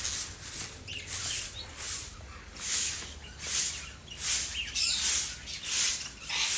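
A broom sweeping a concrete floor in short, regular strokes, a little more than one a second, with small parrots chirping among them.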